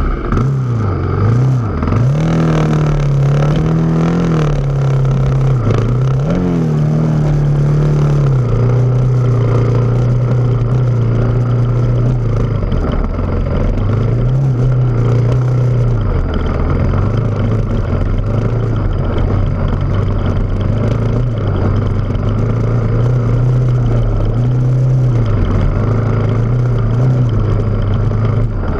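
Off-road vehicle engine running under load on a rocky climb, its revs rising and falling over and over as the throttle is worked.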